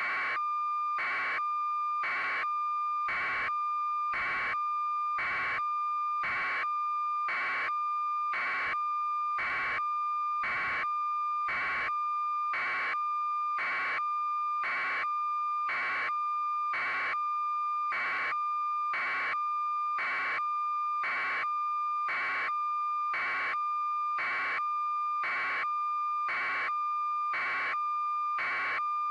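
A steady, high electronic tone with a short beep about once a second, repeating evenly throughout.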